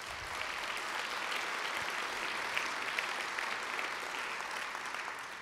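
Audience applauding steadily in a theatre hall, fading out near the end.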